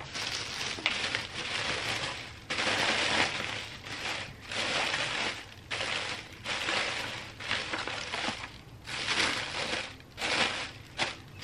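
Plastic air-pillow packing crinkling and rustling in irregular surges as it is handled and pressed into a plastic storage bin.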